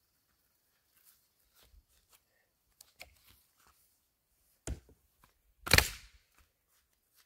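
Wooden fence rail knocking as it is lifted off the post and dropped among the other log rails: a few faint clicks, then two sharp wooden knocks about a second apart, the second the loudest.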